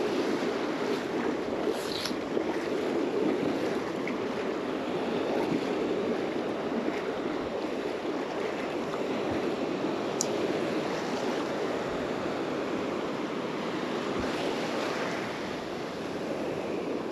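Shallow surf washing in and breaking into foam, a steady rush of waves.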